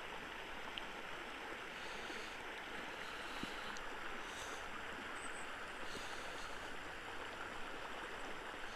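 Small trout creek flowing, a faint, steady rush of water.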